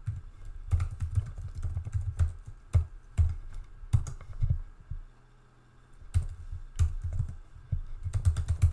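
Typing on a computer keyboard: clusters of keystrokes with a pause of about a second a little past the middle, then more typing.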